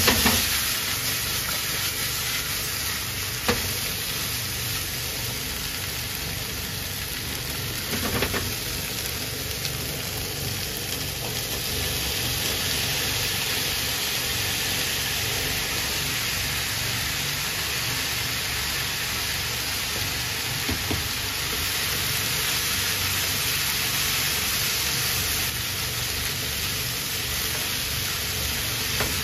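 Chikuwa and chopped vegetables frying in oil in a frying pan: a steady sizzle, with a few sharp clicks of the utensil against the pan as the food is turned.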